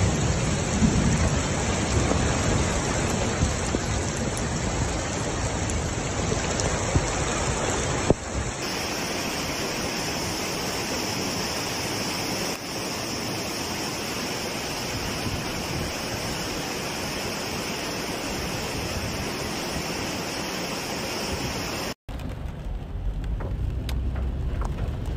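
Steady rushing of fast-flowing floodwater and heavy rain, in short clips that cut abruptly from one to the next. Near the end it changes to a duller, more muffled rain sound with a low rumble, heard from inside a car.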